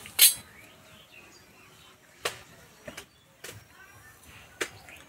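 Several sharp clinks of steel utensils: a slotted frying spoon and a steel plate being handled. The loudest comes just after the start. Faint bird chirps can be heard behind them.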